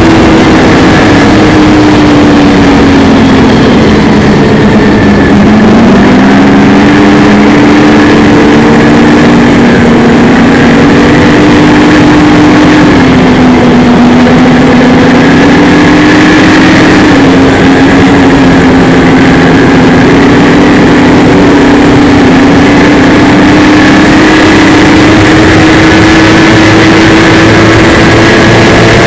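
Snowmobile engine running loud under way on a trail, its pitch rising and falling with the throttle. The pitch dips about five seconds in, climbs back, wavers, then holds fairly steady and creeps up near the end.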